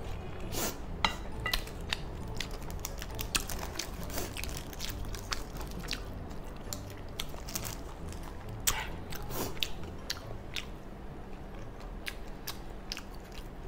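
Close-miked chewing and mouth sounds of a person eating gopchang (intestine) fried rice, with many short wet smacks and clicks.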